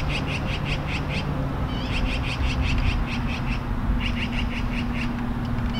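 Socket ratchet clicking fast, about ten clicks a second, in three bursts as it is swung back and forth, unscrewing the top cap of a Fox 36 air fork with a 32 mm socket. A steady low hum runs underneath.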